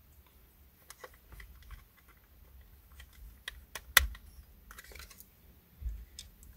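Scattered light plastic clicks and taps as a hard plastic headrest bracket is handled and pressed onto a car seat's metal headrest posts, with one sharp click about four seconds in.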